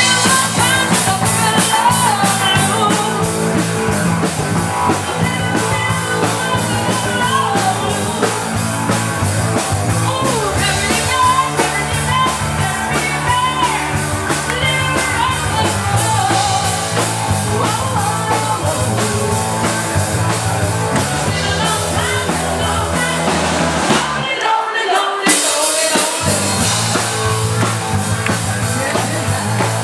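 Live rock band playing: a woman singing over a drum kit and electric guitar with a steady beat. Near the end the drums and low end drop out for about a second and a half, then the full band comes back in.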